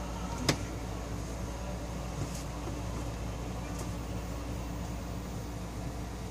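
A steady low mechanical hum with an even background hiss, and one sharp click about half a second in.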